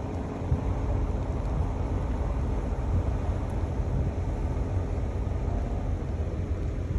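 A car driving slowly on a paved road: a steady low rumble of road noise with a fluttering, wind-like edge.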